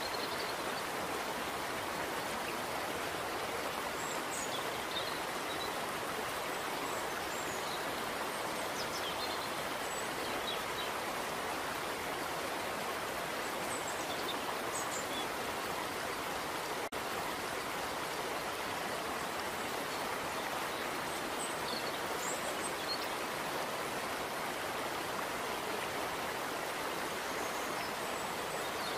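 Steady rush of running water, with a few faint, short high chirps scattered through it.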